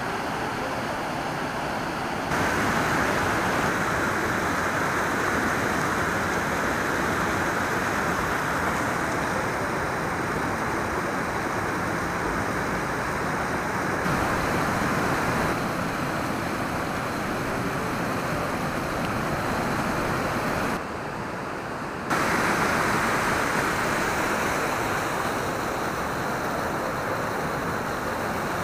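Rushing water of a rocky creek running over boulders and small rapids: a steady hiss that jumps abruptly in level several times.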